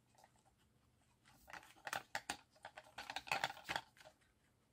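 Small plastic clicks and taps as a loose piece of a toy friction car is pressed back into its place. The clicks come in an irregular run starting a little over a second in.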